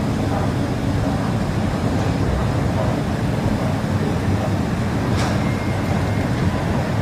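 Steady low rumble of an underground metro station heard from a moving escalator, mostly machinery and ventilation drone, with a short click about five seconds in.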